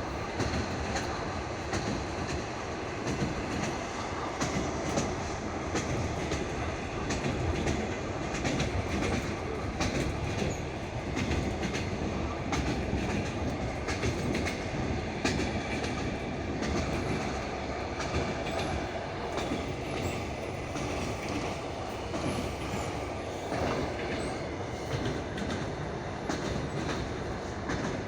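Passenger train wheels clacking over rail joints, heard from inside a moving carriage, over a steady rolling rumble.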